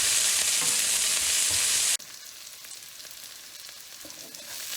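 Shallots and ginger frying in hot oil in a pan, with a steady sizzle. About two seconds in the sizzle drops suddenly to a much quieter level and carries on.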